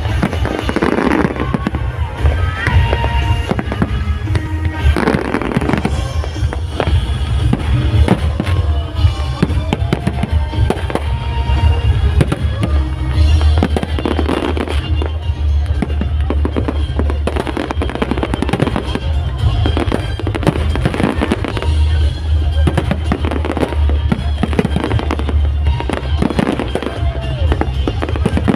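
A fireworks display: many firework shells bursting in close, continuous succession with a deep rumble under the bangs, and music playing over it.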